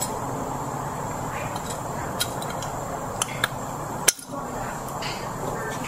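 A few light, sharp metallic clicks and clinks as the clutch fork and throw-out bearing are handled onto the transmission's input shaft snout, over steady workshop background noise.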